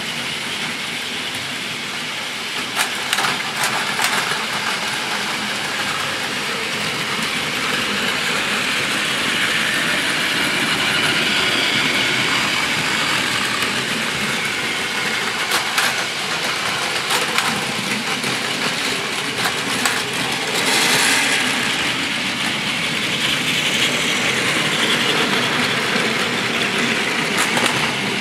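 Several battery-powered Plarail toy Shinkansen trains running at once on plastic track: a steady whirring rattle of small motors and wheels, with a few sharp clicks along the way.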